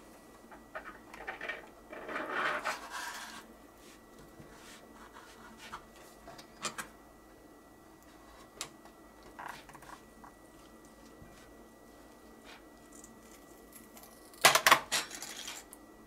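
Plastic pry picks scraping and clicking against the aluminium bottom cover of a Surface Laptop Studio 2 as it is pried off. A quick run of loud clicks and clatter near the end comes as the cover comes free.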